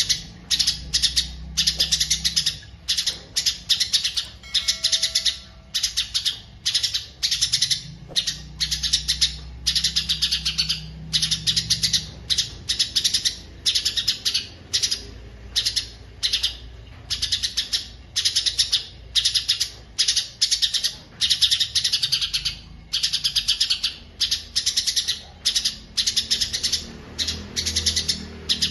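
A songbird singing continuously in fast, chattering phrases of rapid high chirps, each under a second long and separated by short pauses. A faint low hum runs beneath it.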